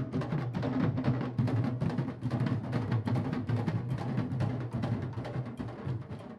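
A candombe drum section, tambores chico, repique and piano, playing a dense interlocking rhythm, with deep drum tones and sharp stick strokes.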